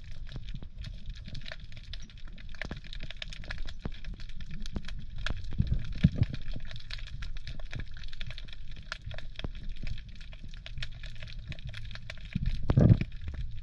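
Underwater sound: a steady crackle of many sharp clicks over a low rumble of moving water, with a louder low rush near the end.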